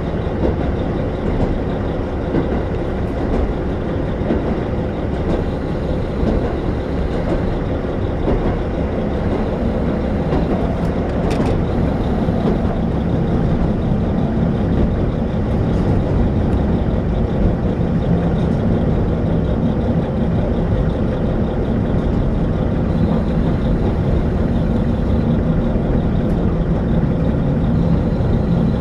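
Inside a diesel railcar running along the line: the steady drone of the diesel engine mixed with wheel and rail noise. The engine hum grows slightly stronger about halfway through.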